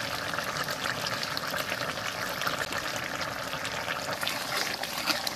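Thick curry of dry fish, brinjal and potato bubbling steadily in a steel wok, a dense run of small pops and splutters. The vegetables are cooked through.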